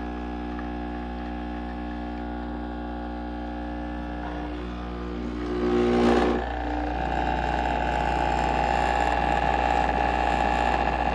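De'Longhi Dedica Arte espresso machine running: a steady pump hum with a few steady tones, then about six seconds in a brief surge and a steady hiss takes over.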